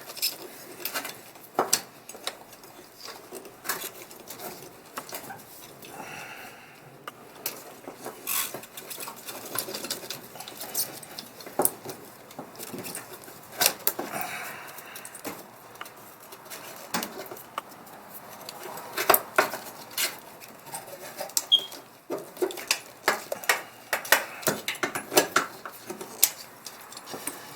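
Irregular clicks, taps and light metallic rattles of the old gas pedal assembly and tools being handled while the pedal is worked loose from the firewall.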